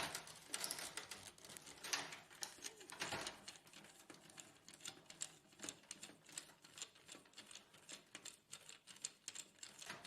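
Faint, irregular small clicks and taps of a screwdriver and plastic printer parts being handled during disassembly, with a few brief scraping rustles in the first three seconds.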